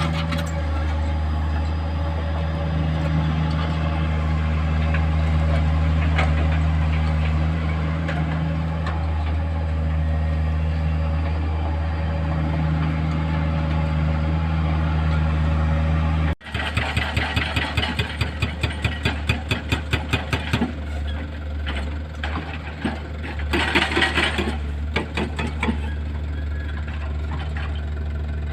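Heavy excavator diesel engine running steadily. After a sudden cut it gives rhythmic pulses about four times a second for a few seconds, then a brief louder, harsher burst.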